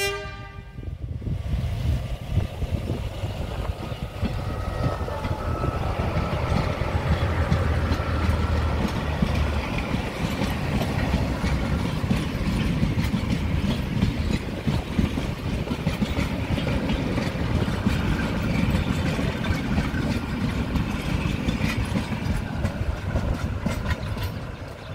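Heritage passenger train passing close by: a warning blast that ends right at the start, then a steady low rumble and the wheels clicking over the rail joints as the carriages roll past, dying away near the end.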